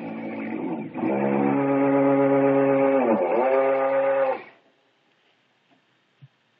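A power tool's motor runs steadily and loudly, bogging down in pitch for a moment about three seconds in as it takes load. It stops shortly after, leaving a few faint knocks.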